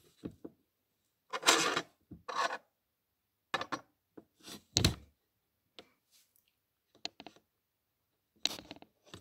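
Small Lego models being set down and slid across a wooden tabletop: short scrapes of plastic on wood and light plastic clicks and knocks, with a heavier knock near the middle.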